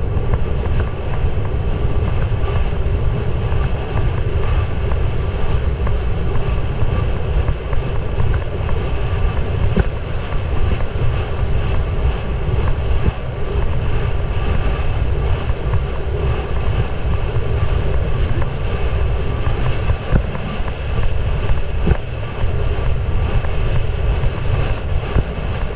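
Wind buffeting the microphone of an action camera riding on a galloping horse: a loud, steady low rumble with rushing noise over it.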